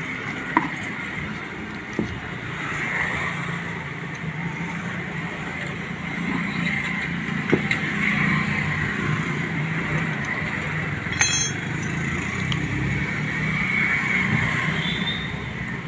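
Steady background rumble and hiss, with a few light clicks and taps as the wires and field coils of a generator alternator's stator are worked loose by hand.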